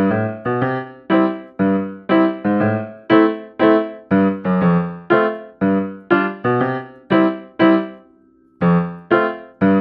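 Background music: a piano-like keyboard playing a bright melody of struck notes, about two a second, with a short pause about eight seconds in.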